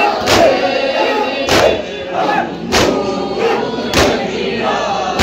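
A crowd of men beating their chests in unison (matam), a heavy slap about every second and a quarter, five times, over a group chanting a noha.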